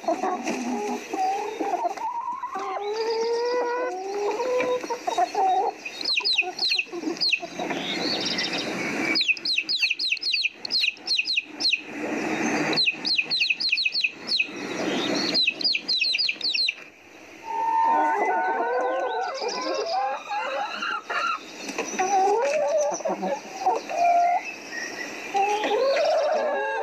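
Chickens clucking and calling, with a long run of rapid high chirping in the middle.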